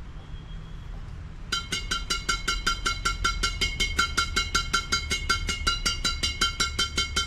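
Badminton racket strung with Kizuna Z63X string at 26 lb tension, its string bed struck repeatedly against the palm. It gives rapid, high, ringing pings, about six a second, starting about a second and a half in.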